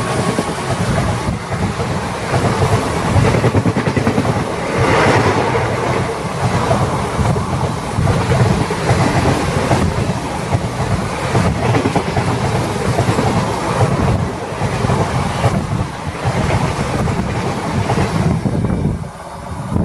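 Coaches of a passing express train rushing by close alongside: a loud, steady rumble and rush with wheels clattering over rail joints, which falls away suddenly near the end as the last coach clears.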